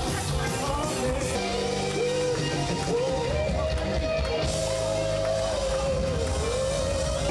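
Rock-style band music with guitar and drums, its lead melody holding long, wavering notes.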